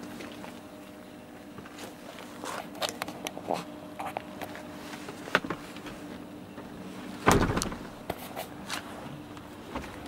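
Scattered clicks and knocks from handling around the interior of a parked BMW E36 coupe over a steady low hum, with one loud thump about seven seconds in. The car door thuds shut right at the end.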